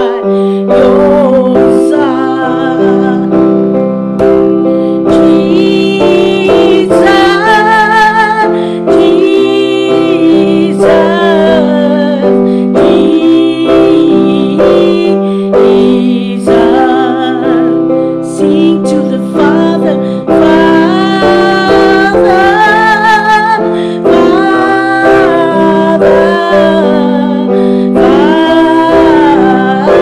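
A woman singing a slow worship song with a wavering, vibrato-rich voice, accompanying herself on an electronic keyboard with sustained chords.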